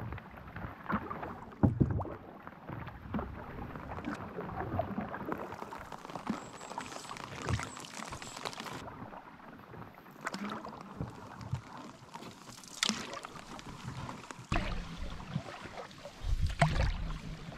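Canoe being paddled: paddle strokes dipping and splashing, with water dripping off the blades and washing along the hull. There are a few louder knocks and splashes along the way, and a low rumble near the end.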